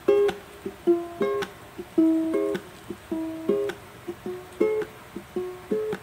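Lo-fi background music in an instrumental passage with no singing: a steady run of short plucked string notes, each starting sharply and fading.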